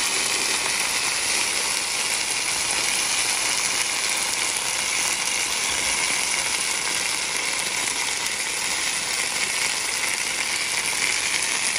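Black pepper sauce and steak sizzling on a hot cast iron sizzling plate, a steady hiss of bubbling sauce.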